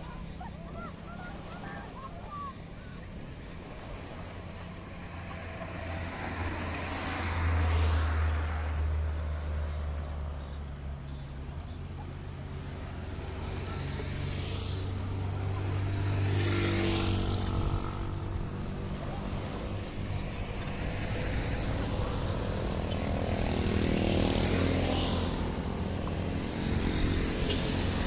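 Motor vehicles passing on a road by the sea: engines rise and fade, about twice, over a steady low rumble, with small waves washing on the rocky shore.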